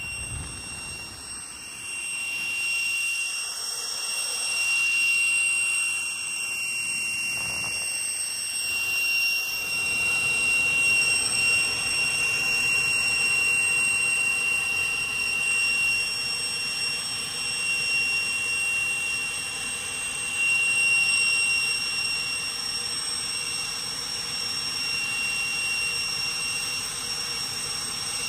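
Twin Turbomeca Marboré turbojets of a Morane-Saulnier MS.760 Paris running at taxi power, heard from the cockpit: a steady high-pitched whine over a rushing jet noise.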